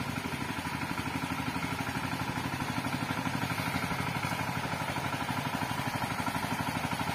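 Walk-behind power weeder's small engine running steadily under load as its attachment cuts a furrow through the soil, with a fast, even beat.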